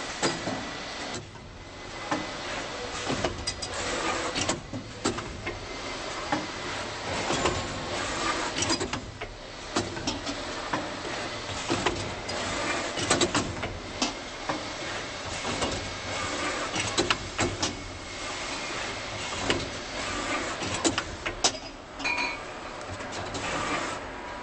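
Automatic CNC screen printing machine for goblet wineglasses running: a steady mechanical noise with frequent irregular clicks and clacks from its moving parts, and a faint steady high tone.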